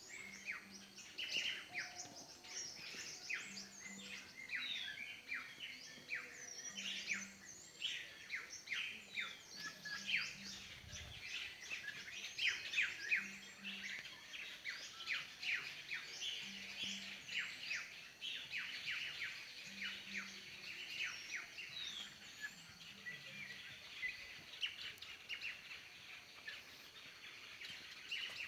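Many birds chirping and calling at once in a continuous, dense chorus of short high chirps and quick sweeping notes.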